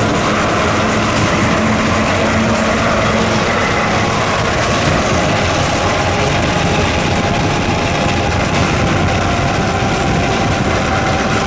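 A heavy military vehicle's engine running loud and steady.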